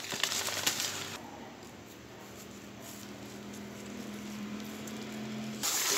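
Plastic wrapping around seedling root balls rustling and crinkling as it is handled, in two bursts: about the first second, and again near the end. A faint steady hum runs in between.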